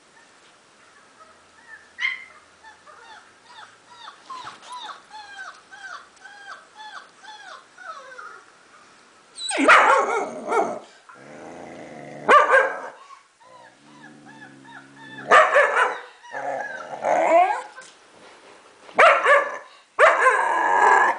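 Faint, high, short falling whimpers of very young German shepherd puppies playing from a video. About ten seconds in, a 4-month-old German shepherd puppy answers with several loud howls and barks, head raised.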